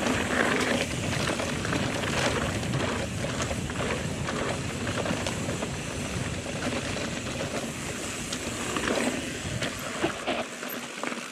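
Mountain bike descending a rocky trail: tyres rolling over rock, with frequent short clattering knocks from the bike, under a steady rush of wind. The low wind rumble drops away near the end.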